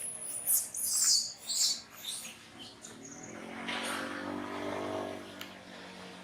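Young long-tailed macaque crying in a run of shrill, high-pitched squeals during the first two seconds, then a lower, drawn-out sound about halfway through.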